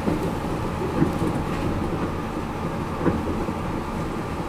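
A Port Liner automated guideway train running at speed along its elevated concrete guideway, heard from inside the car. Its rubber tyres give a steady rumble, with short thumps about a second in and again near three seconds.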